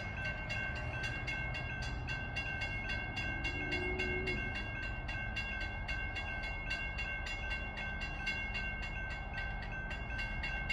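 Railroad grade-crossing bell ringing steadily at about three strikes a second, over a low rumble. A brief faint horn-like note sounds about three and a half seconds in.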